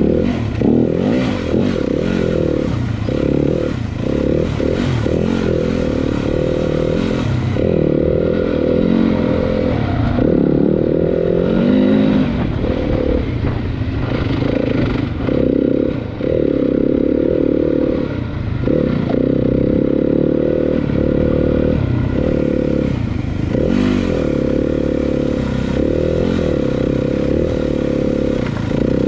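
Dirt bike engine revving up and down as the bike is ridden, its pitch rising and falling every second or two, with clatter and scrapes mixed in.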